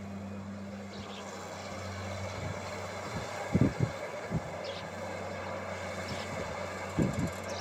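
Wheeled Fiat-Hitachi excavator's diesel engine running steadily while it swings and digs, with a few dull thumps around three and a half seconds in and again near the end.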